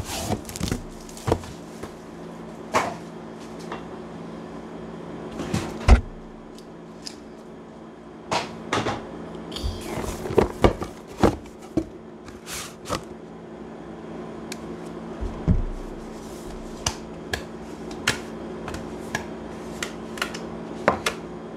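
Cardboard trading-card box being handled and opened by hand: scattered taps, knocks and scrapes of cardboard as the lid comes off, over a steady low hum.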